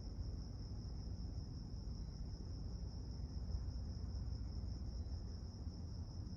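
Steady low rumbling hum that sounds like a bunch of helicopters and generators together, with a continuous high-pitched trill above it.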